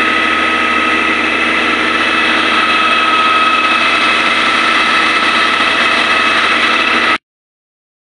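Concrete pump truck's diesel engine running steadily under load, with a constant high whine over it, cutting off suddenly about seven seconds in.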